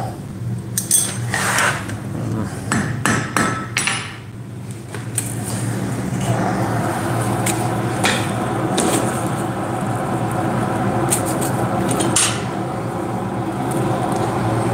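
A few sharp metallic clinks and knocks of tongs and the iron workpiece in the first few seconds. From about five seconds in, a blacksmith's forge runs steadily: a blower hum and the rush of the fire as the piece is reheated.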